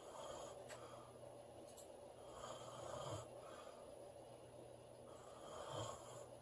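A woman snoring in her sleep: two slow breaths, each swelling and ending in a short low snort, about three seconds apart.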